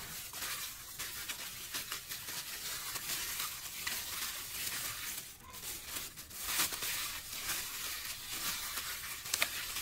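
Plastic bag, worn over a hand, crinkling and rustling continuously while kneading marinade into pieces of raw pork belly, a dense crackle of small clicks with louder stretches about halfway through.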